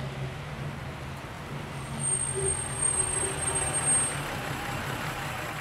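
Car driving: a steady low engine hum over road noise, used as a scene-bridging sound effect, with a thin high whistle from about two to four seconds in.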